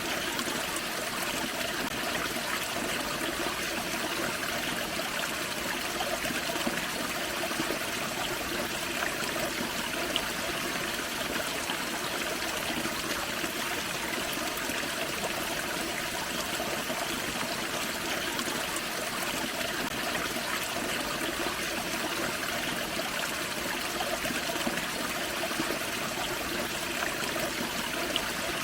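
Small waterfall on a forest creek, the water running in a steady, even rush.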